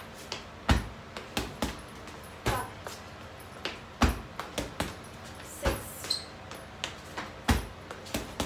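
Gloved punches and kicks striking an Everlast heavy bag: a deep thud every second and a half or so, with lighter smacks in between.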